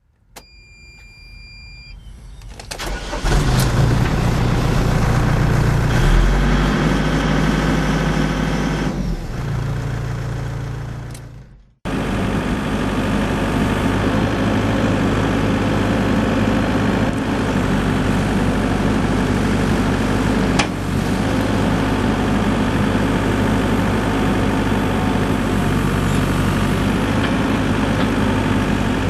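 A 2005 Volvo BL60 backhoe loader's diesel engine starting and running. A steady electronic warning tone sounds for the first couple of seconds, then the engine cranks and catches about 3 s in and runs loudly. After a sudden cut about 12 s in, it runs steadily.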